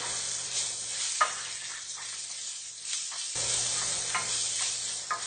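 Onion, green chili and freshly added ground spices frying in a little hot oil in a pan: a steady sizzle, with a few light clicks of a spoon stirring against the pan.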